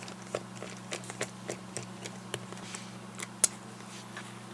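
A run of light clicks and ticks, a few a second, from a T5 Torx screwdriver working the small screws out of the GPS unit's plastic back case, with a sharper click about three and a half seconds in. A steady low hum runs underneath.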